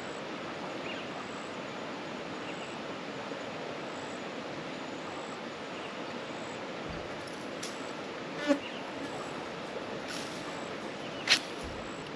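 Insects buzzing over a steady outdoor hiss, broken by two short sharp sounds about eight and a half and eleven seconds in, the second the louder.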